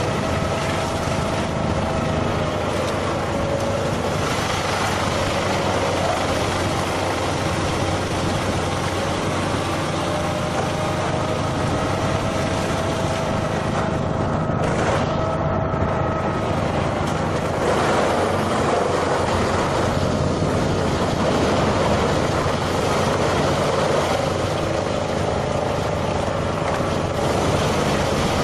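A heavy machine's engine running steadily, with a faint whine that wavers slightly in pitch.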